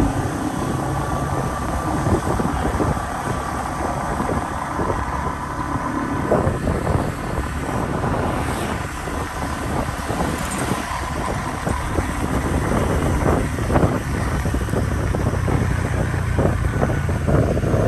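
Motorbike running along a street, its engine hum mixed with tyre noise and wind buffeting the microphone.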